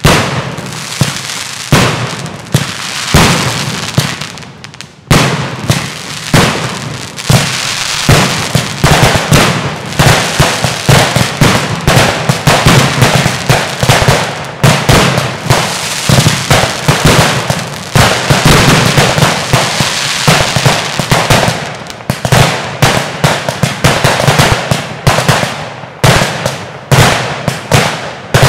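Fireworks display: a dense barrage of aerial shells bursting in quick succession, several sharp bangs a second. There is a brief lull about four seconds in, then a steady run of rapid bangs.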